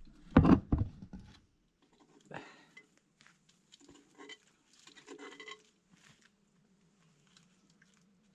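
Plates and cutlery clinking and tapping faintly while people eat, after a short loud voice sound in the first second.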